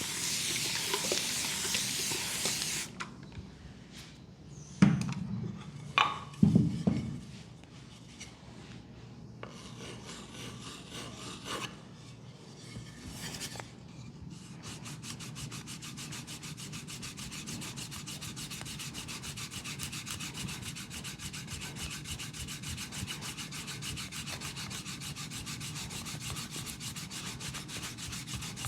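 Leg massage: brisk rubbing over skin, with a bright hiss at the start and a few heavy thumps about five to seven seconds in. From about halfway on come fast, even rubbing strokes.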